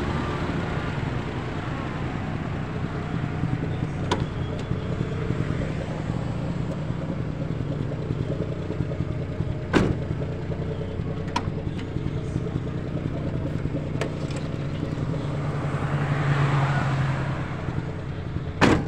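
Old sedan's engine idling steadily after a restart, having been left to cool because its radiator was running hot. It swells louder briefly about sixteen seconds in, with a few sharp knocks, the last near the end.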